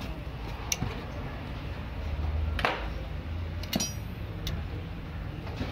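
Metal hand tools clinking and tapping against the engine's timing-belt parts: a few separate sharp clicks, one with a brief metallic ring, over a low steady background rumble.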